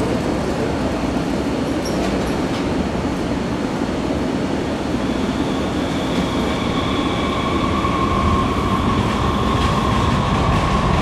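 Muni Metro light rail train running through the station with a steady rumble. About halfway through, a high whine of several tones joins in, and the sound grows slightly louder toward the end.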